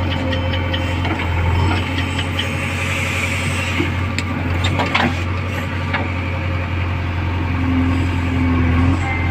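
Heavy diesel engine running steadily, with scattered metallic clanks and clicks from working machinery.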